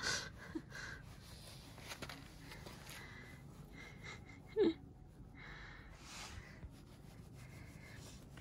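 Faint rustling of a hand stroking a calico cat's fur, with one short vocal sound about halfway through.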